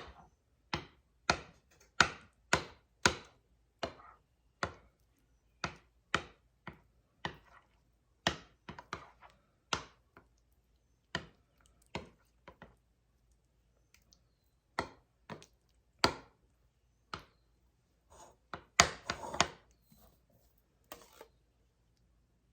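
A utensil knocking against a baking pan as cherry pie filling is swirled through fudge: sharp knocks, about two a second at first, then further apart, with a quick cluster near the end.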